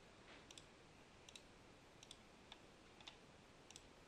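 Faint computer mouse clicks, one every half second or so, as objects on screen are selected one after another.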